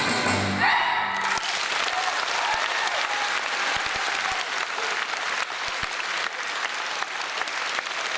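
A string orchestra with solo violin plays its final chord, which breaks off about a second in. An audience then applauds steadily.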